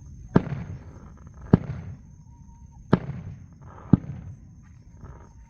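Four sharp bangs about a second apart, each followed by a short low rumbling tail.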